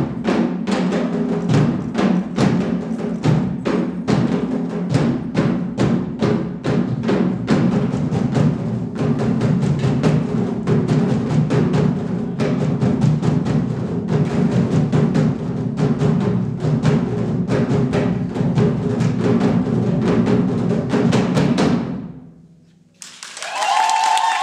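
Ensemble of drums played with sticks, tall painted drums and djembes, beating a fast, driving rhythm of dense strikes that stops together about 22 seconds in. About a second later applause breaks out.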